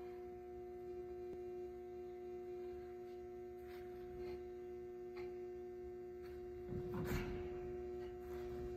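Steady electrical hum of several held tones, with faint clicks and rustles and one short scuffing swish about seven seconds in, typical of a shoe sliding on a hard floor during a turn.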